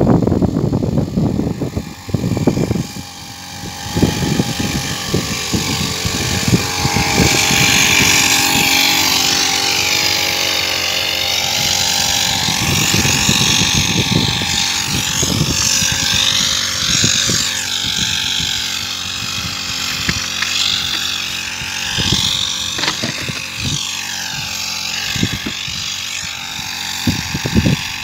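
Small petrol engine of a motorised backpack sprayer running steadily at a constant speed, with a broad hiss of air and spray.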